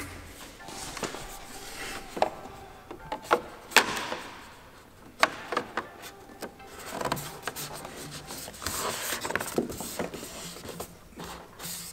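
Plastic interior trim panels of a 2017 Ford Mustang being pressed and worked into place: rubbing and scraping with a series of irregular sharp clicks and knocks.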